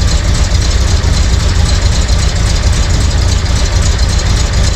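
1971 Corvette's V8 engine idling steadily.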